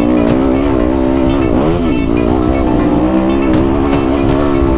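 Yamaha dirt bike engine running while riding, its pitch rising and falling with the throttle, dipping briefly about a second and a half in before picking back up.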